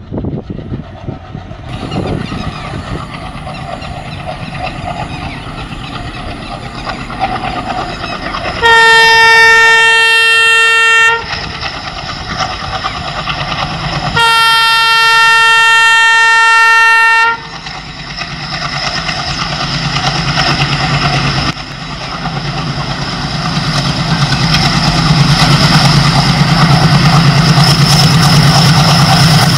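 Diesel locomotive horn, two long blasts of about two and a half and three seconds a few seconds apart, from an approaching Indian Railways WDM3D diesel locomotive. After them the locomotive's engine rumble builds steadily as it nears.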